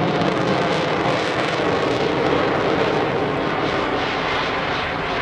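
Engine noise of a jet-boosted Taperwing Waco biplane flying aerobatics overhead: a steady drone that eases off slightly near the end.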